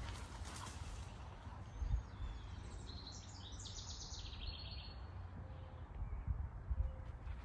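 A songbird giving a quick run of high chirps for about two seconds, over a steady low rumble with a few soft thumps.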